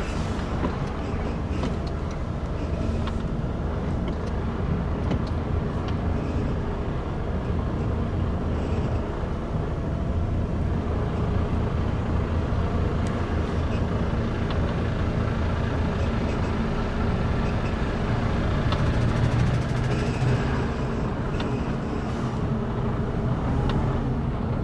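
Mercedes-Benz Actros truck's diesel engine running at low revs as the truck rolls slowly over a weighbridge, heard from inside the cab; a steady low hum that swells slightly about three-quarters of the way through.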